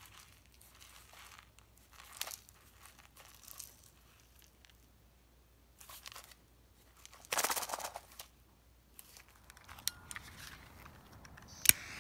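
Scattered rustling and scraping of a hand turning a paper-wrapped firework fountain tube, with one louder rustle about two-thirds of the way in. Near the end, a sharp click as a lighter is struck alight.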